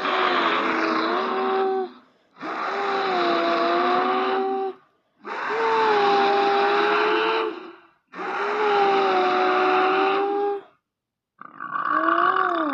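Troll creature vocal sound effect: a series of long, rough, pitched calls, four of about two seconds each separated by short silences, and a fifth shorter one with a rise and fall in pitch beginning near the end.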